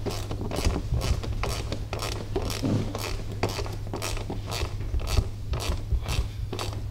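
10 mm ratchet clicking steadily, about two to three clicks a second, as a bolt on the mirror's support bracket is tightened, over a steady low hum.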